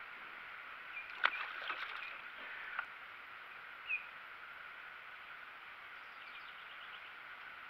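Open-air river background with a steady hiss and birds chirping, one short chirp standing out about four seconds in. A few sharp knocks and a brief clatter come from the small boat about a second in as the angler moves back to his seat.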